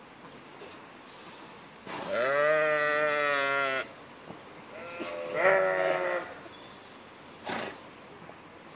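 Adult sheep bleating twice: a long, low bleat of about two seconds, then a shorter one a second later.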